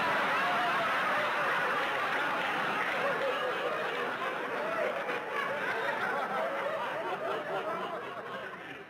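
Sitcom studio audience laughing: a long, sustained laugh from many people that fades near the end.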